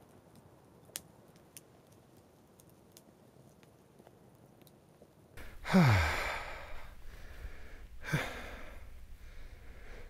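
A man lets out a long, loud, contented sigh with his voice falling in pitch about halfway through, then a second, shorter sigh about two seconds later. Before that there are only a few faint clicks.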